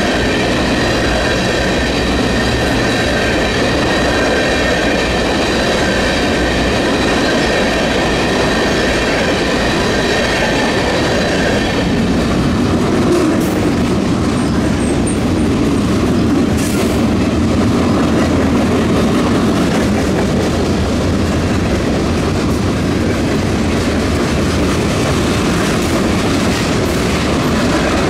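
Freight cars rolling past close by: a steady loud rumble and clatter of steel wheels on rail. A steady high-pitched wheel squeal rings over the rumble and stops about twelve seconds in, leaving a rougher rumble with a few sharp clicks.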